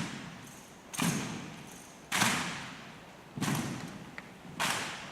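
Sharp thuds from a rifle drill team, four of them about a second apart, each echoing and dying away in a reverberant room.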